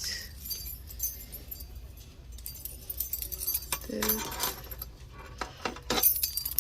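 A bunch of keys jangling and clinking in a hand, in small irregular bursts with a busier run of clinks near the end.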